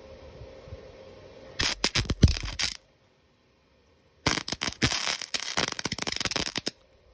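Electric arc welding on steel: the arc crackles and spits in two runs, a short one of about a second and then a longer one of about two and a half seconds, with dead silence between them.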